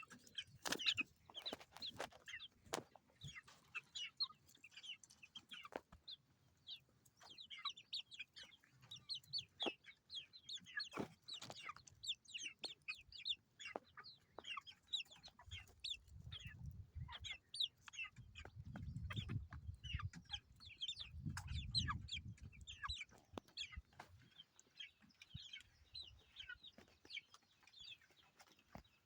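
Chicks peeping continuously: many short, high, falling chirps overlapping one another. A few sharp knocks come early on, and a low rumble runs under the peeping for several seconds in the middle.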